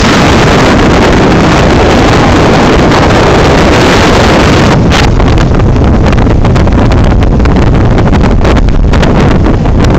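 Motorcycle engine running while riding along a road, drowned in heavy wind buffeting on the microphone that turns crackly about halfway through.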